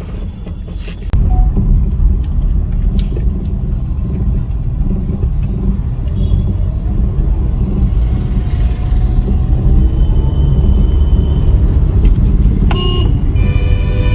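Low, steady road and engine rumble inside a moving Maruti Suzuki Baleno, getting louder about a second in. A pitched tone sounds briefly near the end.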